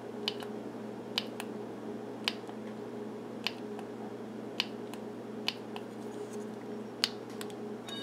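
The plastic push button of a Utilitech UT7341 wireless doorbell clicks sharply about once a second, around nine presses in all. No chime answers the presses: the unreliable button is failing to trigger the bell. A faint steady hum runs underneath.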